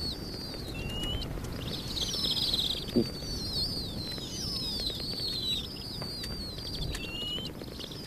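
Snowy owl chicks giving thin, high begging calls, many short falling chirps overlapping one another. A soft thump comes about three seconds in.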